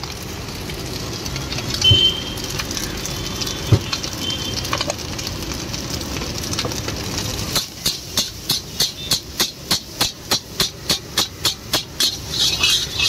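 Iron street-food wok over a gas burner: a steady hiss of flame and sizzling rice with a few light knocks. From about halfway, a metal ladle strikes and scrapes the wok in a fast, even rhythm, about three clanks a second, as the fried rice is stirred and tossed.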